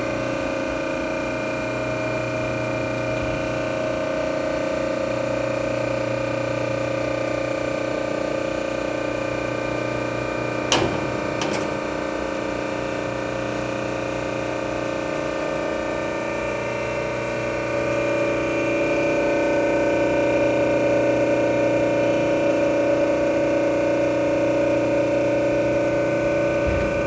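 PTR 2300HD vertical hydraulic baler's hydraulic power unit running with a steady whining hum. Two sharp clicks come about 11 seconds in, and the sound grows louder from about two-thirds of the way through.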